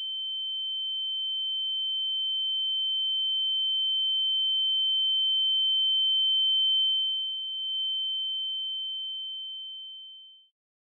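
A single steady high-pitched tone, a ringing-in-the-ears sound effect, swelling slowly louder, dipping briefly past the middle, then fading out near the end.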